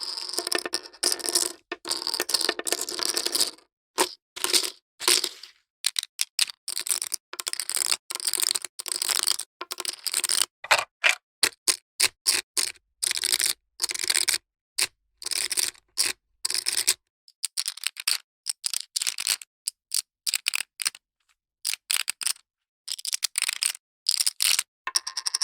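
Poker chips clicking and clattering against one another. Dense bursts of rapid clacks alternate with separate single clicks, then a mostly quiet stretch, then a fresh clatter near the end.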